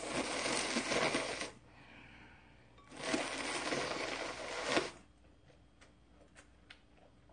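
A person slurping ramen noodles: two long, loud slurps, the second starting about three seconds in. Then quieter chewing with small clicks.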